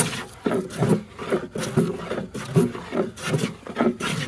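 No. 5 jack bench plane pushed over a wooden board in quick strokes, about five in a row, its sharp blade taking fine shavings.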